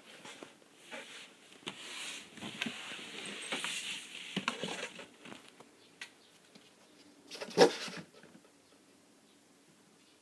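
Kitten scrabbling around inside a cardboard box, its claws scratching and rustling the cardboard, then one louder bump-and-scrape about seven and a half seconds in as it leaves the box.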